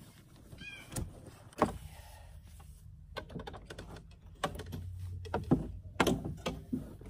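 Irregular knocks and clatters of gear being handled against a canoe's gunwale, the loudest raps coming between about four and a half and six and a half seconds in. A brief squeak sounds just under a second in.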